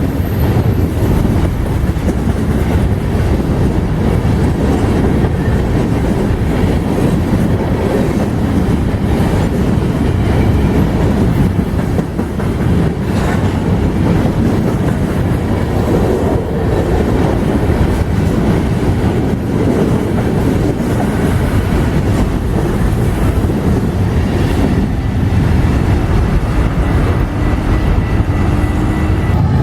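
A freight train rolling past close by: a loud, steady rumble of wheels on rail with occasional clacks.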